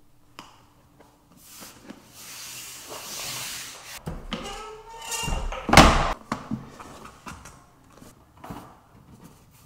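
Lever-action vinyl plank cutter shearing a luxury vinyl plank. A soft scraping as the plank is slid in, a squeaky creak as the handle comes down, then a single loud crack as the blade cuts through about six seconds in, followed by a few light knocks.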